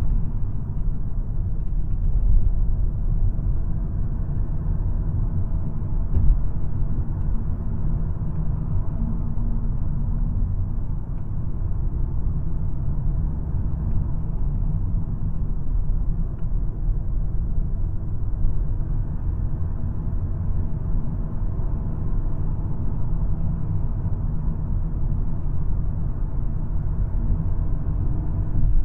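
2022 VW Golf R being driven: a steady low rumble of road and engine noise, with a faint engine note that drifts up and down a little, and a brief thump about six seconds in.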